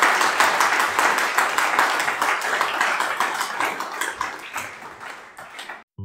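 Audience applauding at the end of a talk, the clapping dying away over the last couple of seconds before it cuts off abruptly near the end.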